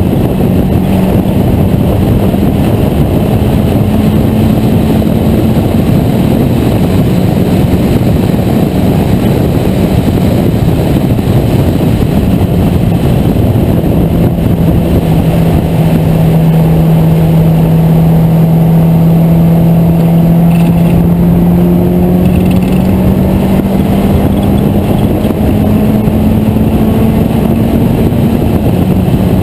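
Engine of an open-cockpit vintage race car running hard at track speed, heard from on board over a heavy rush of wind and road noise. The engine note holds steady, drops about halfway through, then climbs slowly for a long stretch as the car accelerates.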